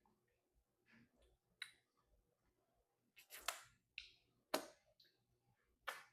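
Near silence broken by a few faint, short clicks and taps, about four of them, spaced a second or so apart.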